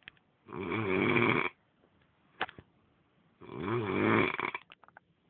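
A man snoring loudly in his sleep: two long snores about three seconds apart, each lasting about a second, with a few short clicks between them.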